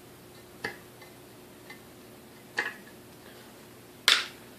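A few sharp clicks and knocks from parts of a KitchenAid 3C mixer's motor being handled and set down on the bench, the loudest near the end.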